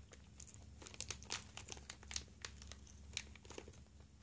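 Clear plastic parts bags crinkling as they are handled, in faint, short, irregular crackles.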